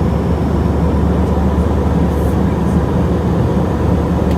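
A motor vehicle running steadily: a constant low engine rumble with travel noise.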